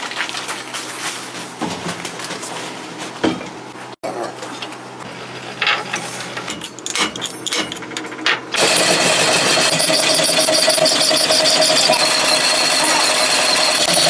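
Scattered mechanical knocks and clatter. About eight and a half seconds in, a machine starts and runs loud and steady with a fast rhythmic rattle.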